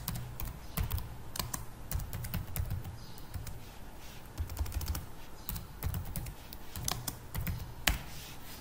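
Typing on a computer keyboard: irregular keystrokes with short pauses between bursts.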